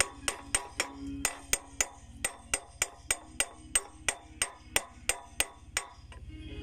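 Hammer striking steel in a fast, even series of about twenty ringing blows, roughly four a second, working on a bulldozer track's broken master-link bolt to get it out.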